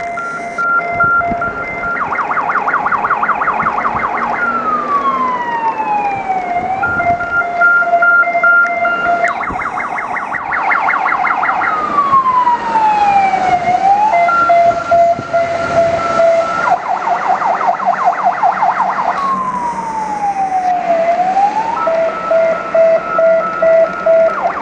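Fire engine's electronic siren cycling through a repeating pattern about every seven and a half seconds: a rapidly pulsing steady tone, a fast warble, then a tone gliding down.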